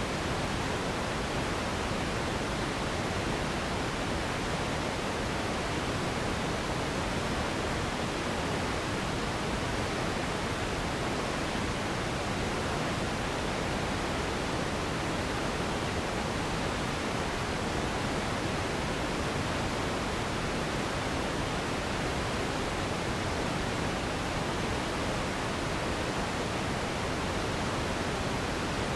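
Steady synthetic noise for sleep, an even hiss spread from a deep rumble up to high frequencies, holding at one unchanging level.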